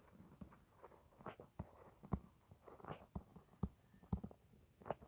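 Faint writing sounds: irregular light taps with soft scratching, about one or two taps a second, as a pen writes out a math answer.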